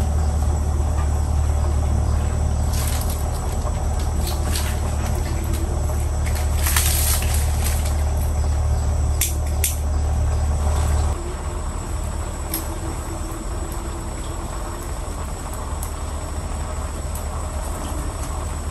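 Kitchen sounds at a gas stove: a steady low rumble that cuts off suddenly about eleven seconds in, with a few sharp clinks and knocks of pots and utensils.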